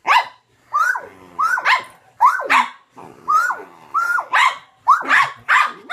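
A dog barking in play: about a dozen short, high barks, roughly two a second, each rising then falling in pitch.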